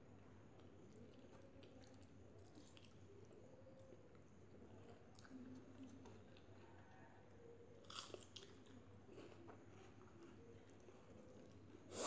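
Faint close-up chewing of a mouthful of rice and egg curry, with small wet mouth clicks and a brief sharper click about eight seconds in.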